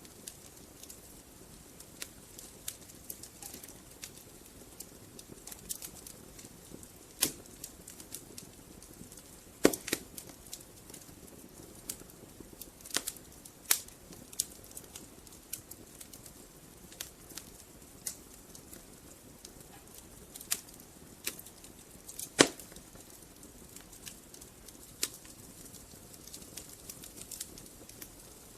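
Wood fire burning in a fireplace: a soft steady hiss with irregular crackles and sharp pops of the burning logs, a few louder pops standing out.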